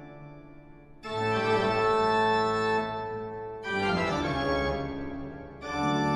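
Intro music of slow, held organ-like chords. A new chord swells in about a second in, another near four seconds and another near six seconds.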